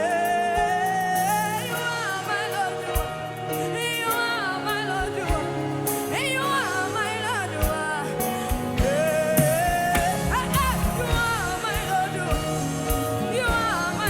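Live gospel worship music: a singer's voice gliding in long runs over the band's sustained chords and a regular beat.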